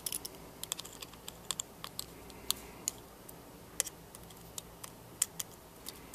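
Light, irregular clicks and ticks of a small precision Phillips screwdriver working the tiny screws out of the iPhone 5's metal connector cover plate.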